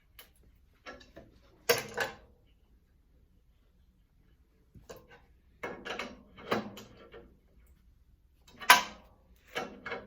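Hand tools and steel parts of a stomp shear's guard clanking and knocking during disassembly, in scattered clatters with a quiet stretch in the middle; the loudest knocks come about two seconds in and near the end.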